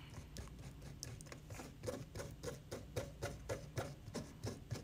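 Stiff brush scrubbing thick ceramic glaze through a stainless steel mesh strainer, a run of short, quick scraping strokes at about four to five a second. The glaze is being sieved to break up clumps.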